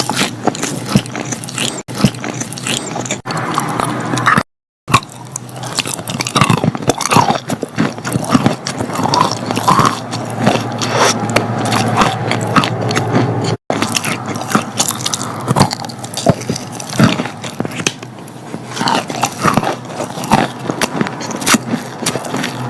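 Close-miked biting and chewing of wet chalk: a dense run of crunches and crackles. It breaks off at a few abrupt cuts, one a half-second gap of silence about four and a half seconds in.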